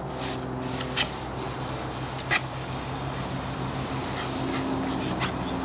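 Garden hose nozzle spraying with a steady hiss, the water spattering on the lawn and the dog, with a few short sharp ticks scattered through it. A steady low hum runs underneath.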